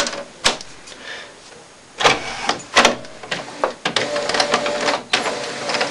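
All-in-one printer's flatbed scanner running a scan: a couple of clicks, then the scan carriage motor whirring and rattling, with a steady tone from it near the end.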